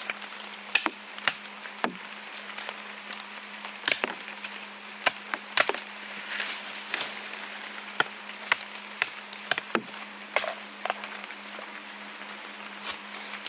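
Irregular sharp knocks and clicks, some loud and some faint, like a blade chopping wood, over a steady low hum.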